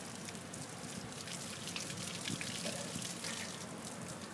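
Water running from a garden hose and splashing steadily onto a wet concrete curb and pavement.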